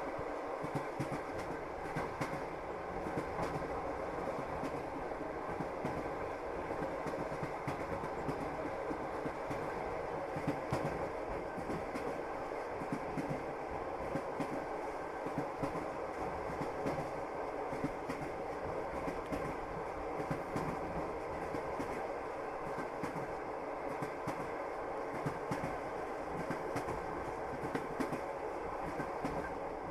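Passenger train running on the rails, with the steady rumble of the carriage and the clickety-clack of its wheels passing over rail joints.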